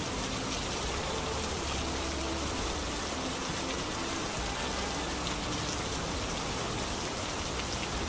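Steady rain-sound track: an even hiss of falling rain with scattered faint drop ticks. A few faint held tones lie underneath.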